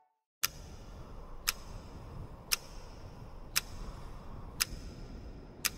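A clock ticking steadily, one sharp tick a second, over a low, steady background rumble. It starts about half a second in, after a moment of silence.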